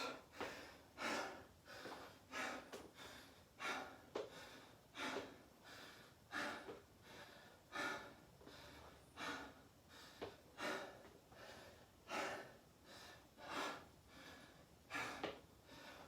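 A person breathing hard and rhythmically, about one heavy breath every second and a half, out of breath and recovering from strenuous exercise.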